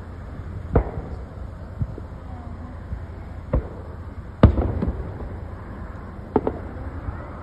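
Fireworks bursting: about six sharp bangs a second or two apart, the loudest about four and a half seconds in and followed by a brief crackle, over a steady low rumble.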